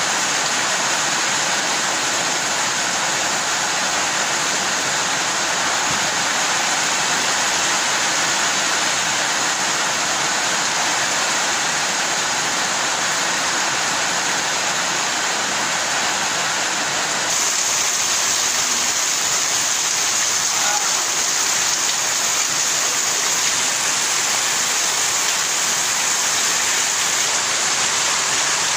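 Heavy rain falling in a steady, dense hiss. A bit over halfway through it changes abruptly to a brighter hiss of rain with water pouring off a roof edge.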